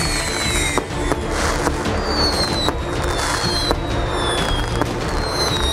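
Aerial fireworks bursting in quick succession, sharp bangs and pops over and over, with several high falling whistles. Music plays along underneath.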